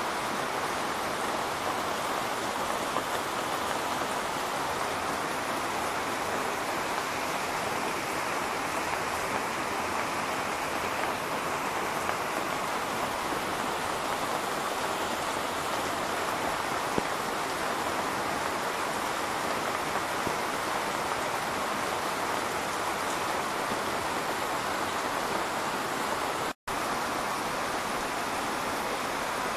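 Rain falling steadily onto waterlogged ground and a roof, an even hiss. It cuts out for an instant about three seconds before the end.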